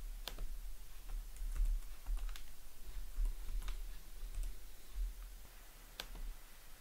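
Computer keyboard keystrokes and mouse clicks, scattered and irregular, with a quick run of keystrokes between about one and two and a half seconds in, over a low steady hum.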